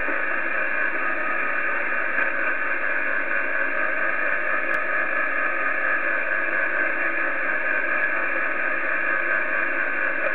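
Steady hiss of shortwave band noise from an Icom IC-756PRO III transceiver's speaker, receiving lower sideband on the 40-metre band.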